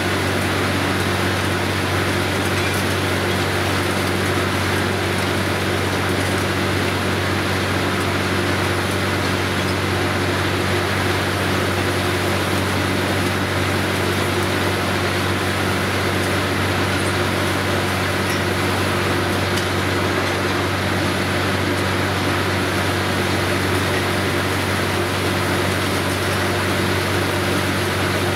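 Truck-mounted borewell drilling rig with its ELGi air compressor running steadily while drilling: a constant engine drone with a hiss of air over it.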